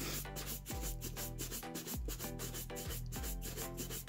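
Kiwi horsehair shoe brush buffing polish into a black leather dance shoe, with quick back-and-forth bristle strokes. Background music with a steady beat plays underneath.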